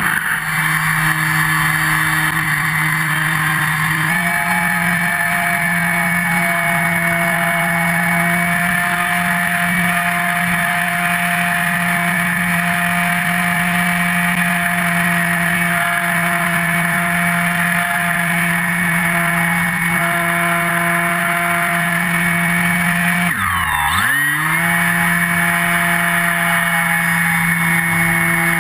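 Electric motor and propeller of a Multiplex FunCub model plane whining at a steady high pitch, heard from a camera on the plane with air rushing past. About 23 seconds in the pitch drops sharply and comes straight back up, as the throttle is pulled back and reopened.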